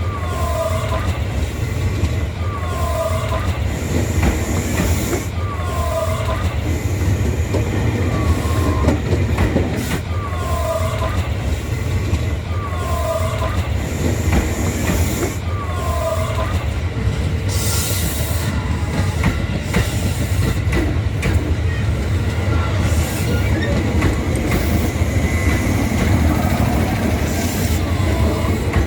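Electric train running on the rails with a steady low rumble, over which a short falling chirp repeats about every one and a half seconds, fading out about halfway through with one more near the end: the unusual sound made as the train runs over the track. A brief hiss comes about two-thirds of the way through.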